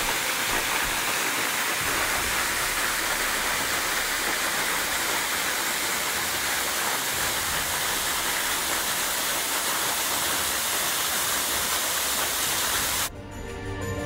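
Steady rushing of a waterfall, water falling down a rock cliff onto rocks and a shallow pool. About a second before the end it cuts off suddenly and music begins.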